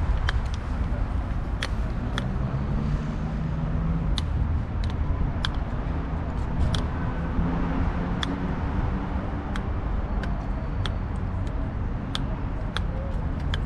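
Street traffic rumbling steadily, with a vehicle engine humming past in the middle, and scattered sharp clicks.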